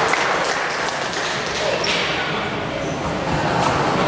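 Echoing murmur of voices in a large sports hall between table tennis points, with a couple of light taps of a table tennis ball.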